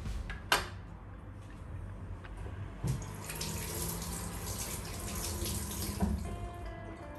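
Kitchen tap running into a sink for about three seconds, starting and stopping fairly abruptly. A single sharp click comes shortly before it.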